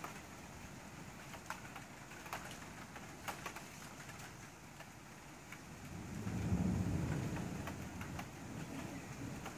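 Steady rain with scattered drops ticking close by, and a low roll of thunder that swells about six seconds in and dies away over the next few seconds.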